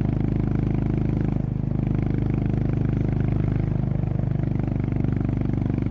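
Honda CB350RS's air-cooled single-cylinder engine running steadily under way, with an even exhaust note and a brief dip in level about one and a half seconds in.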